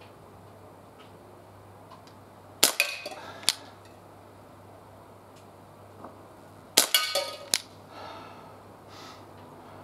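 Umarex Tornado CO2 BB revolver fired twice, about four seconds apart. Each shot is a sharp crack followed by a brief metallic clatter as a BB hits a tin can and knocks it off the stack.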